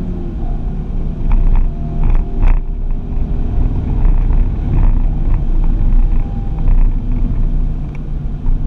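Ford Focus ST driven hard at track speed, heard from inside the cabin: engine and heavy road rumble, swelling and easing every second or so. A few short knocks come between one and three seconds in.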